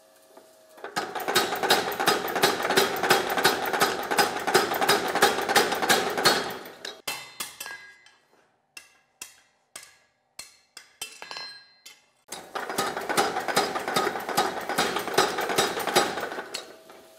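Mechanical power hammer pounding in a fast run of blows on a hot chisel, splitting a red-hot flat iron bar. In the middle come a dozen or so separate hand-hammer blows, each ringing briefly on the anvil. Then the power hammer runs again.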